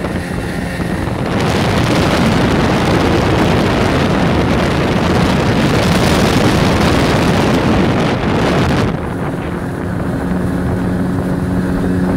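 Golfstream (Parsun) T8 8 hp two-stroke outboard motor running at speed, mixed with heavy wind rush on the microphone and wake spray. About nine seconds in the wind rush drops and the motor's steady drone comes through clearly.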